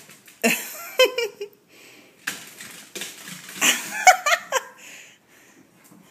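A person laughing in two short bursts, about half a second in and again near four seconds in.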